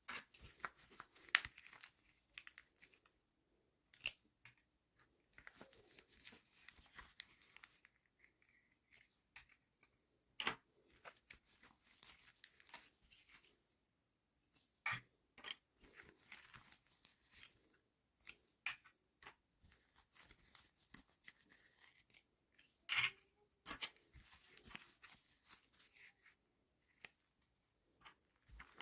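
Toy packaging being opened by hand: on-and-off crinkling and tearing of plastic wrap, with scattered sharp clicks, the loudest about a second in and near 23 seconds.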